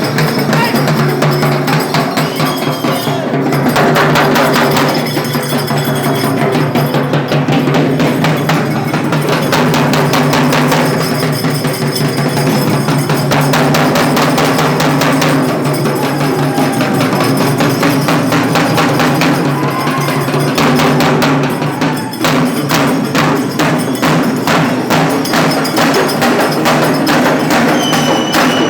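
Loud percussion-heavy music with fast, dense drumming beating without a break.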